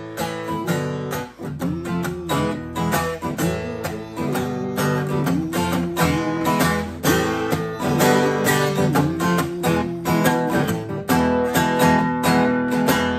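Guitar instrumental break: acoustic guitar chords under a lead line of repeated bent notes that rise and fall in pitch, with no singing.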